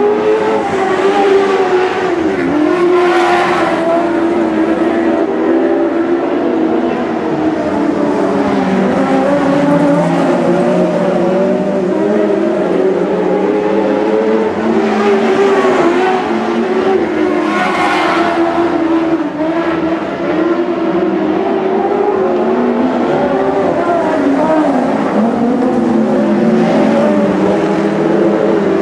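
A pack of Lightning Sprints winged sprint cars racing on a dirt oval, their engines revving up and down through the turns. Cars pass close about three seconds in and again about eighteen seconds in.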